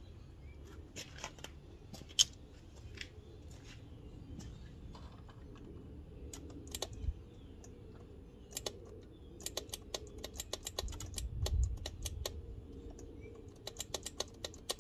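Yamaha V-twin motorcycle's starter solenoid clicking rapidly, in two fast runs of about ten clicks a second, as the starter button is pressed on jump-pack power. The owner takes it for the solenoid clicking, on a bike that was said to need a starter. A few separate sharp clicks come first, one of them the loudest sound.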